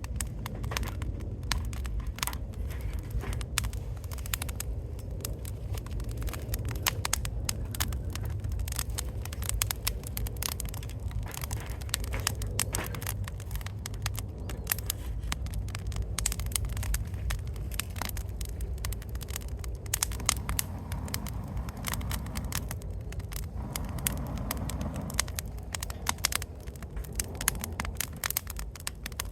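Wood fire crackling, with many sharp pops and snaps over a steady low rumble.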